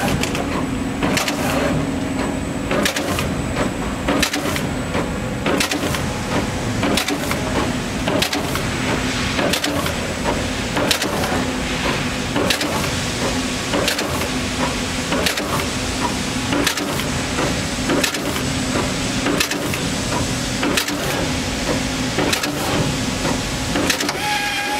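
Universal Instruments 6241D axial-lead component inserter running at slow placement speed. Its insertion head clacks sharply about once a second as it places components into a circuit board, over a steady machine hum.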